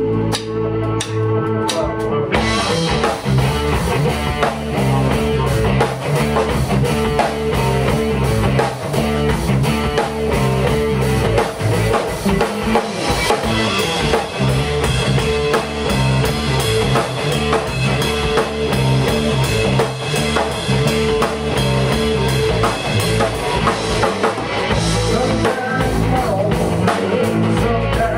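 A rock band playing live: electric guitar alone at first, then the drum kit and electric bass come in about two seconds in and the full band plays an instrumental passage together.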